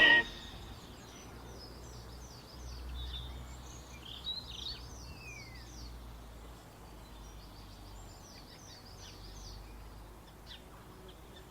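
Outdoor ambience with small birds singing: series of short, high, repeated chirps, with a few louder calls about four seconds in. A low rumble sits underneath for a few seconds near the middle.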